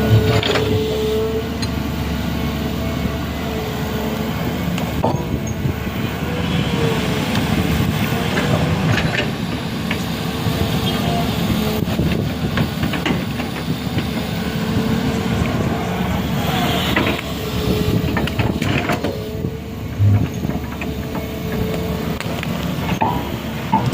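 A motor vehicle engine running steadily, with scattered knocks and clatter.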